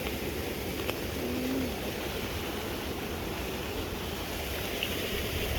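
Steady rush of fast-flowing floodwater, with wind buffeting the microphone.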